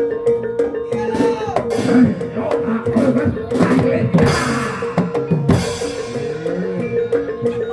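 Live Javanese barongan music: hand drums with pitch-bending strokes and struck metal percussion over a steadily held tone, with a noisy cymbal-like wash about halfway through.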